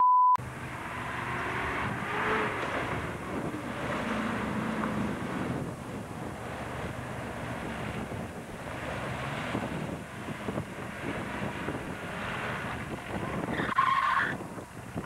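A brief steady test-card beep, then an off-road SUV's engine working hard as its wheels churn through mud and water, with a short loud burst near the end.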